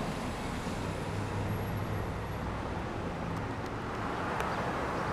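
Road traffic noise with a steady low hum from cars idling at the crossing.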